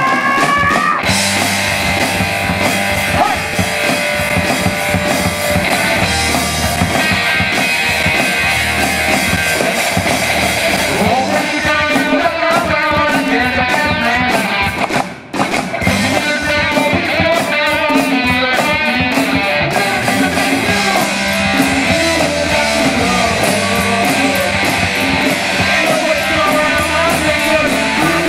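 Rock band playing: electric guitars, bass and drum kit. The sound cuts out for a moment about halfway through, then comes back in.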